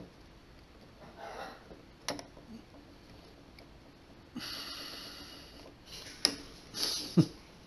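Forceps clicking and scraping on the small metal parts of a Willcox & Gibbs automatic thread tension as their rounded tips slip off. There are a few sharp clicks, about two seconds in and twice near the end, and a soft hiss lasting about a second and a half in the middle.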